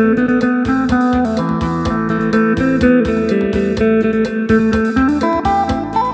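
Isan phin, a plucked Thai lute, playing a quick run of melody notes over a steady beat.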